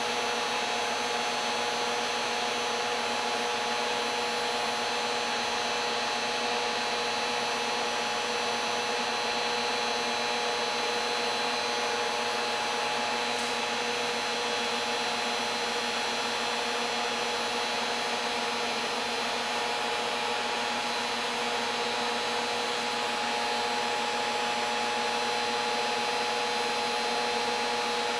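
10 kW resonant-lock induction heater running under load, a steady whine of several held tones over a hiss, as it heats an iron billet to a glow in its water-cooled copper coil.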